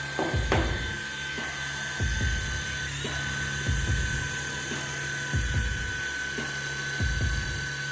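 Small electric motor with a steady high whine that wavers briefly about three seconds in, with a low thump about every second and a half.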